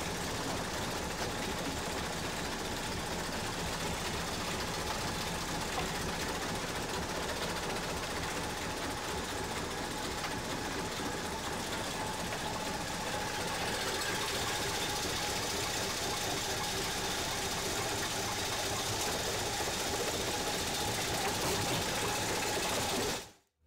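Steady mechanical running noise of a jaw crusher's feed, where a vibrating grizzly screen feeds rock into the crusher, with no change in level.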